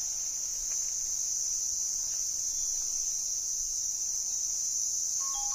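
Steady high-pitched drone of insects in the forest, unbroken throughout, with two short clear notes near the end.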